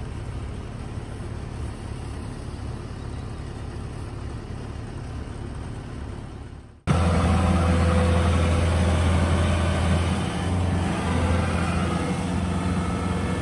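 Kubota DC-70 combine harvester's diesel engine running steadily, muffled at first; after a sudden cut about seven seconds in it is much louder and closer, a steady low hum.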